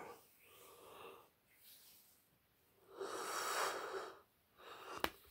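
A man breathing close to the microphone: a faint breath about half a second in, then a louder, longer noisy breath lasting about a second from about three seconds in. A single sharp click comes near the end.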